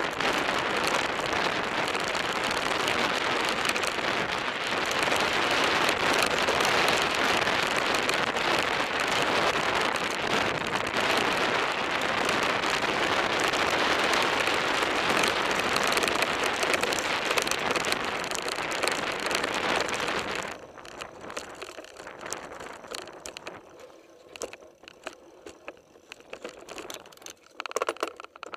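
Mountain bike riding fast over a gravel dirt track: tyre noise on loose stones and wind on the microphone make a dense, steady hiss. About twenty seconds in it cuts off abruptly as the bike comes to a stop, leaving quieter scattered clicks.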